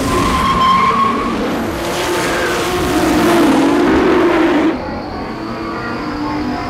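Sports car tyres squealing in the first second, then its engine revving hard under acceleration, easing off somewhat about two-thirds of the way in.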